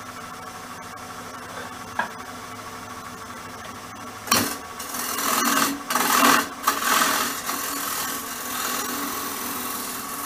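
Wood lathe running with a steady hum; about four seconds in, a turning tool starts cutting into the face of the spinning wooden blank, a loud rasping scrape that comes and goes with short breaks as the tool is pushed in and eased off. The cut is a dovetail recess for chuck jaws.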